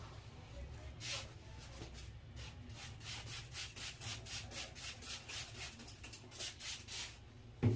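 Hands rubbing briskly over the scalp and hair in an oiled head massage, in quick scratchy strokes about three a second. Near the end there is a single low thump.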